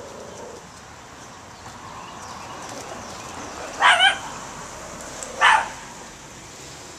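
Small dog giving three short, high-pitched barks: two in quick succession about four seconds in, then one more about a second and a half later.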